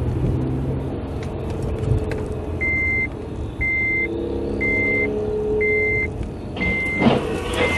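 A moving car heard from inside, with steady engine and road noise. A few seconds in, a high electronic warning beep starts and repeats about once a second, six times. Shortly before the end there is a brief, loud burst of noise.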